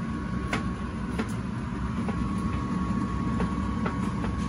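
Eggplant omelette frying in oil in a nonstick pan: sharp pops every half second or so over a steady low rumble and a thin steady whine.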